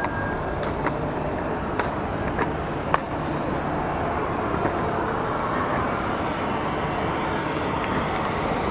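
Steady roar of aircraft noise from the apron, carried into a large terminal hall, growing slightly fuller after about three seconds. A few sharp clicks come in the first three seconds.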